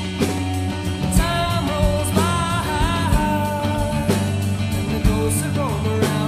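Rock song with drums and bass, with a voice singing from about a second in.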